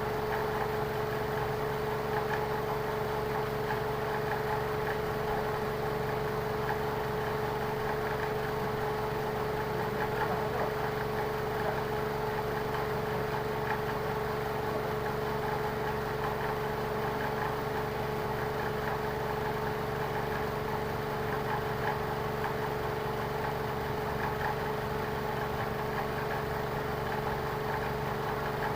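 Lexus car engine idling steadily, with a constant hum.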